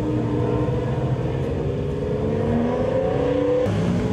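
Classic rally car engine running and revving up, its pitch climbing over a couple of seconds. Near the end the sound changes abruptly to another engine running steadily at a lower pitch.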